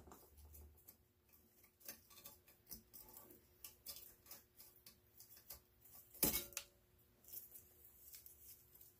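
Faint ticking and rustling of short insulated copper wires being pulled by hand out of an electric water valve's housing, with one louder sharp clack about six seconds in.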